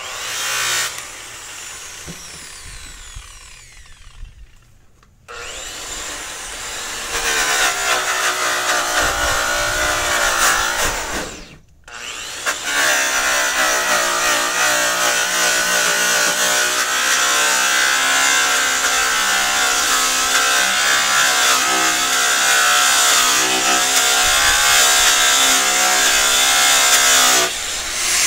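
Electric angle grinder with a buffing pad polishing a semi-trailer's aluminium panel. It starts up and winds down over a few seconds, restarts about five seconds in and stops briefly a little after ten seconds. It then runs long and steady with a wavering pitch before cutting off near the end.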